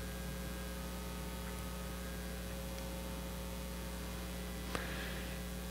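Low, steady electrical mains hum in the recording during a pause in the talk, with a faint click near the end.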